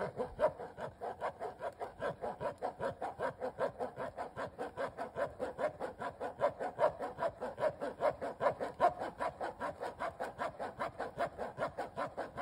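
A metal spoon scraping round and round in a fine-mesh strainer, working blended juice pulp through the mesh, in a quick steady rhythm of about five strokes a second.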